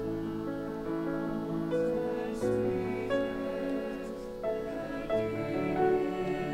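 Mixed choir of men's and women's voices singing slow held chords that change every second or so.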